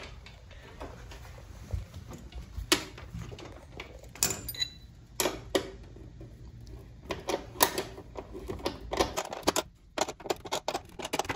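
Hand tools working the bolts of a motorcycle's plastic lower fairing: scattered clicks and knocks, then a run of quick metallic clicks from about seven seconds in as a wrench turns a nut.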